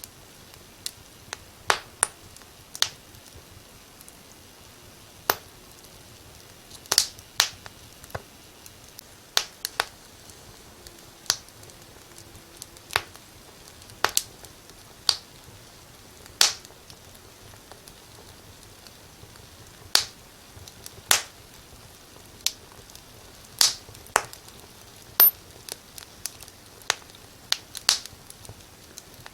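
Wood fire crackling in a fireplace: irregular sharp pops and snaps, a few to several every couple of seconds, over a faint steady hiss.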